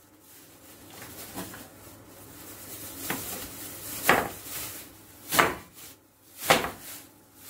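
A plastic bag of frozen vegetables being handled. There is soft crinkling, and four sharp crackles or knocks about a second apart in the second half as the frozen-together pieces are worked loose.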